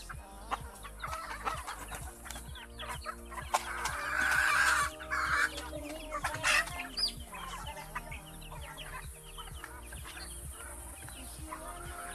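Chickens clucking around the yard, with one louder, rougher burst of sound about four seconds in that lasts about a second.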